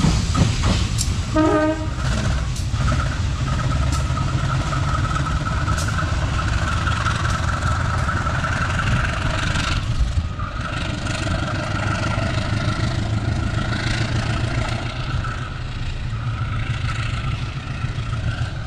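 Diesel-electric locomotive of class CC 201 (a GE U20C) running light as it draws away: a steady low engine drone, with wheels clacking over rail joints in the first few seconds and a steady high whine over the drone from a few seconds in.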